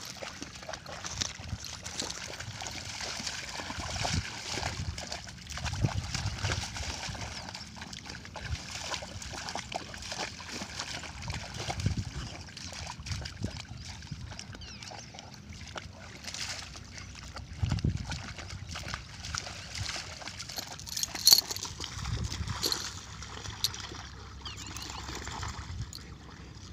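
Rottweilers splashing and wading in a shallow muddy puddle: irregular sloshing and splashing of water as they paw and move through it, with a few louder splashes.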